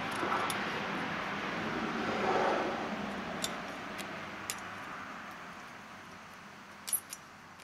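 Faint scraping of a steel scribe's hooked tip working around the inside of a two-stroke exhaust port and header flange, marking the port mismatch, with a few light metallic ticks as the tip catches on the metal.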